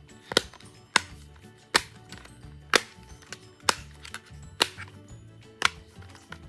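Simple dimple fidget toy being popped: its bubbles pressed in one after another, seven sharp pops about a second apart, over background music.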